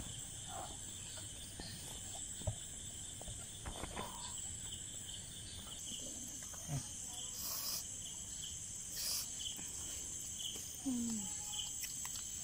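Night insects chirping steadily in a high-pitched trill, with a few faint clicks over it.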